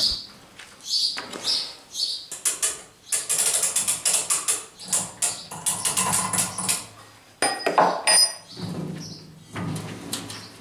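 A homemade corrugating machine rolling a corrugated-iron sheet into a curve: its gears and rollers clatter with irregular clicks and rattles, with a few short squeaks near the start.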